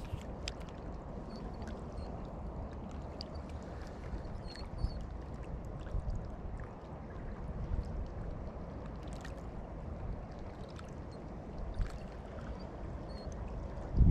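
Steady wind rumble on the microphone with water lapping, and a few faint scattered clicks.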